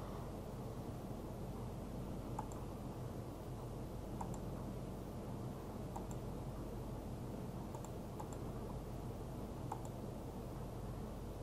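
Computer mouse button clicking, a single sharp click every second or two, over a steady low hum.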